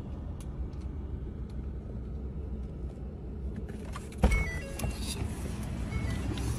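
Steady low rumble of a car heard from inside the cabin, with a sudden loud thump about four seconds in.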